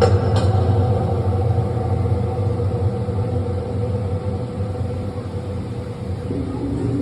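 Taron's Intamin roller coaster train rumbling along its steel track as a steady low rumble with a constant hum, slowly fading, with two sharp clicks right at the start.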